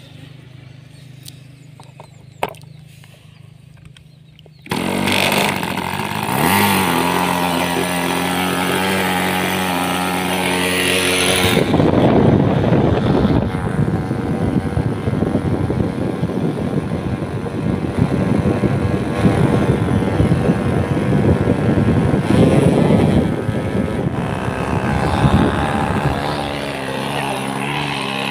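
OS 15LA two-stroke glow engine on an RC model plane catching about five seconds in and idling. It then runs up to a loud high-RPM buzz for about fifteen seconds, the engine being set up before flight, and drops back to idle near the end.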